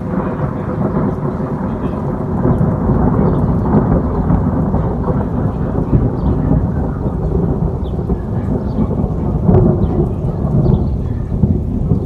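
Long, deep rolling thunder rumble that builds up as it begins and swells again near the end.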